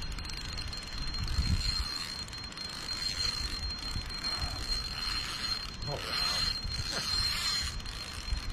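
A fishing reel being worked against a hooked rainbow trout, its drag slipping and clicking as the fish pulls. The angler judges the drag set too loose.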